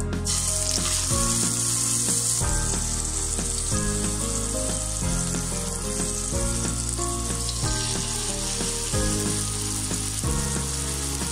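Beef steaks sizzling in hot butter in a frying pan. The sizzle starts suddenly as the steaks go in, is loudest for the first couple of seconds, then settles to a steady frying sizzle.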